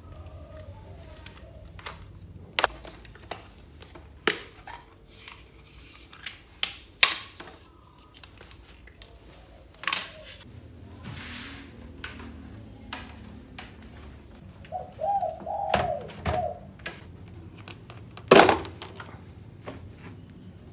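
Plastic plug and power strip being handled: scattered clicks and knocks over a low steady hum, with a short warbling sound a little past halfway and one loud knock near the end.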